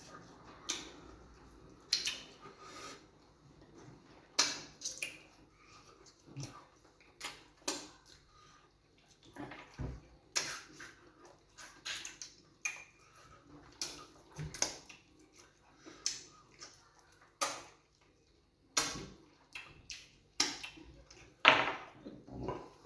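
Close-up wet eating sounds as fufu and groundnut soup are eaten: irregular sharp lip smacks, slurps and chewing clicks every second or so.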